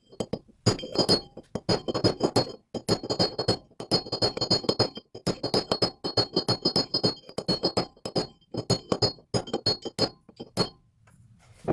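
Rapid hammer blows, metal on metal, driving an outer bearing race into a heated Jeep six-bolt hub. The blows come several a second in runs with short pauses, each with a bright ring, and stop about a second before the end.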